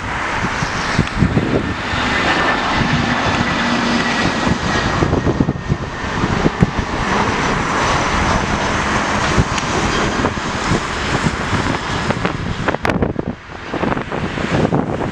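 Jet airliner's engines roaring steadily as the aircraft passes, with thin high whining tones over the roar. Wind buffets the microphone, and the roar eases near the end.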